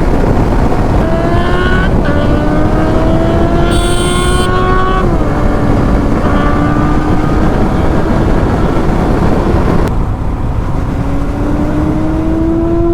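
Motorcycle engine pulling up through the revs with a gear change about five seconds in, under heavy wind noise on the rider's microphone. Near ten seconds the wind eases and the revs drop, then climb again.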